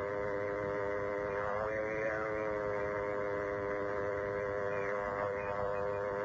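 Spiricom electronic voice device buzzing: a steady drone of several fixed tones with a few slow rising-and-falling sweeps over it. This is the buzz through which the claimed spirit voice of Dr. Mueller was heard.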